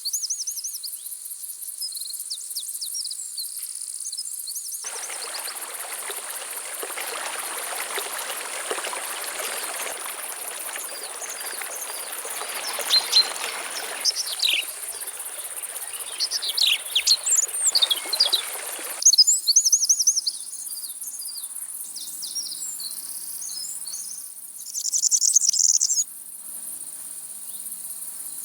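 A steady high-pitched drone of insects, with several birds chirping and trilling over it. A rushing noise comes in about five seconds in and stops suddenly at about nineteen seconds, and a loud buzzing trill sounds for about a second near the end.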